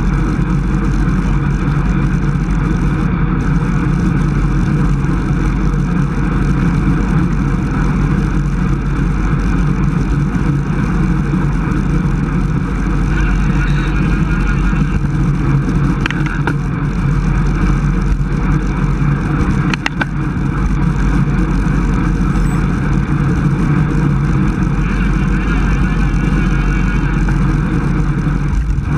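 Steady, loud wind rush on the microphone of a camera riding on a road bicycle at about 27 mph, heaviest in the low rumble.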